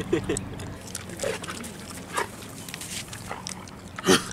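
Pet dog making short grunting vocal sounds: a few quiet ones at the start, two more in the middle and one loud brief one near the end.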